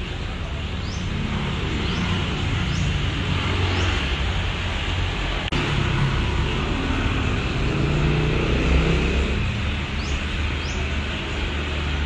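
Road traffic ambience: vehicle engines running and passing, with a few short high chirps. The sound cuts abruptly about halfway through and carries on in the same way.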